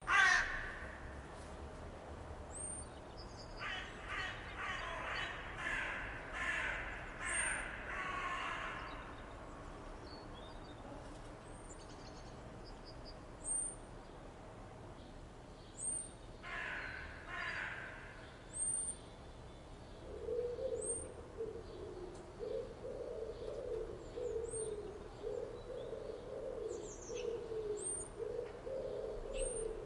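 Morning birdsong from several birds: short high chirps repeat every second or two, two runs of harsh, rapidly repeated calls come early on and about halfway through, and low cooing begins about two-thirds of the way in.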